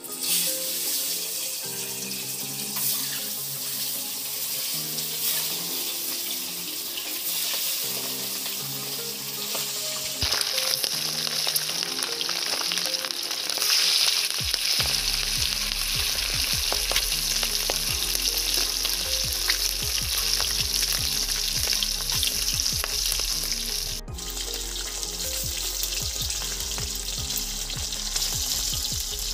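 Turmeric-coated boiled eggs sizzling as they fry in hot oil in an aluminium kadai, the sizzle growing louder about ten seconds in, with a metal spatula clicking against the pan as they are turned. Background music plays throughout.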